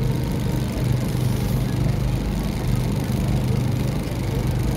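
Steady low mechanical hum, like an engine running at an even speed.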